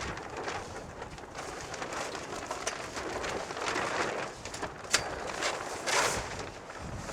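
Fabric cover of a pole-frame storage shed rustling and crinkling as it is handled and pulled over the frame, in uneven swells with a sharp click about five seconds in.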